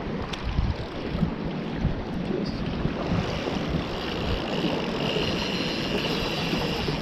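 Wind buffeting the microphone over the wash of water, a steady rushing noise; a faint high steady tone joins about three seconds in.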